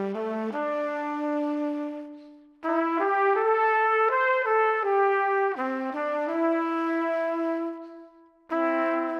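Background music: brass instruments playing held chords in slow phrases, fading out about two seconds in and again near the end before the next phrase begins.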